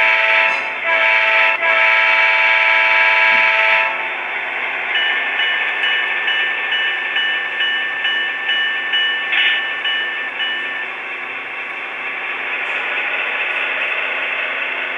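Model diesel locomotive's sound system sounding a multi-chime horn in blasts over the first four seconds, the last one the longest, for a road crossing. A bell then rings in a steady repeated ding for several seconds over the locomotive's steady engine sound.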